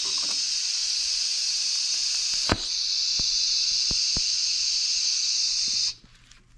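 Scratch-start TIG welder arc hissing steadily while tacking stainless steel exhaust pipe, with one sharp crack about two and a half seconds in; the hiss cuts off abruptly near the end.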